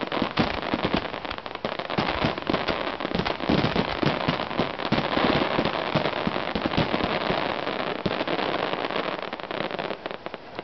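Aerial fireworks bursting in quick succession: a dense, continuous crackle of many small reports mixed with heavier booms, thinning near the end.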